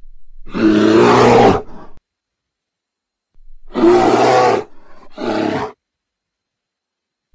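Bear roar sound effect, loud: one long roar about half a second in, then two shorter roars close together around the middle.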